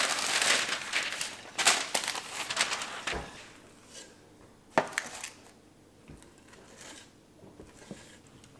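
Parchment paper crinkling and rustling as it is laid out on a metal baking sheet, then a few sharp clicks and light scrapes from a metal cookie scoop working dough in a steel mixing bowl.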